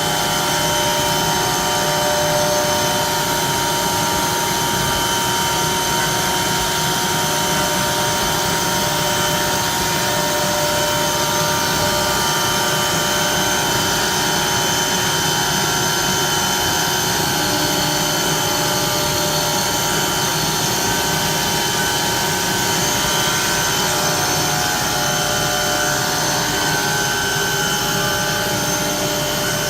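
Automatic-feeding CNC router running: a steady machine noise with several held whining tones over a dense hiss, keeping the same level throughout.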